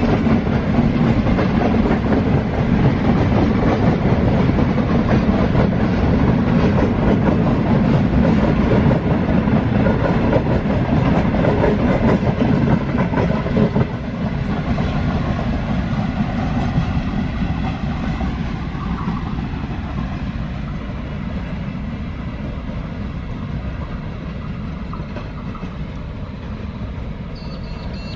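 Freight train of container wagons rolling past, the wheels clicking and clattering over the rail joints. About halfway through the sound drops, and the train then fades away steadily as its tail recedes.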